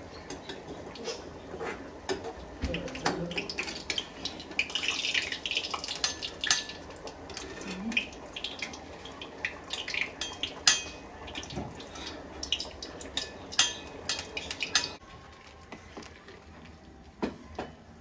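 Metal spoon clinking and scraping against steel cookware as ground coconut-and-spice paste goes into the beef curry and is stirred, in irregular clinks. The clinks thin out about fifteen seconds in, when a steady background hiss cuts off.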